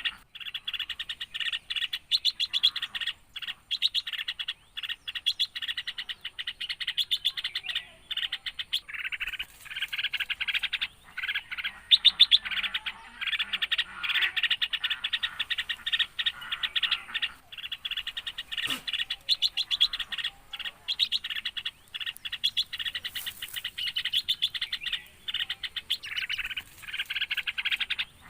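Small birds chirping in rapid, continuous runs of high chirps, with short breaks between runs.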